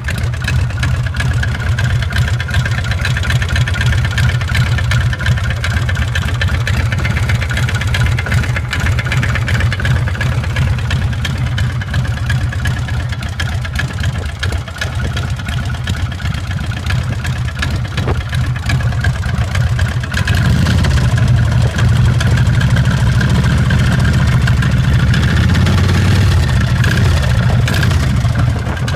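Harley-Davidson Sportster V-twin engine running, with a noise from the valve train that the owner believes comes from bad lifters, and possibly the pushrods. It gets louder about twenty seconds in.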